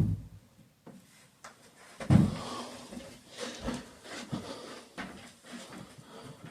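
A muffled thump about two seconds in, then light knocks and rustling of things being handled.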